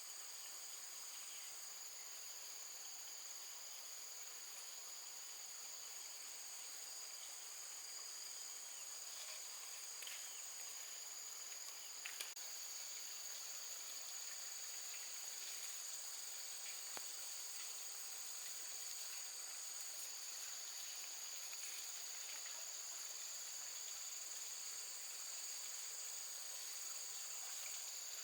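Steady high-pitched chorus of insects, such as crickets, droning without a break. A couple of faint clicks sound about halfway through.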